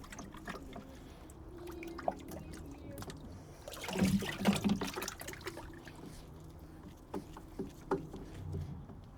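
Gloved hands smearing lubricant onto a pool filter's rubber O-ring: small wet clicks and rubbing, louder for a moment about four seconds in.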